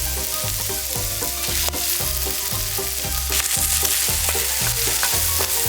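Food sizzling and frying in a hot pan, a steady crackling hiss, with background music carrying a steady bass beat underneath.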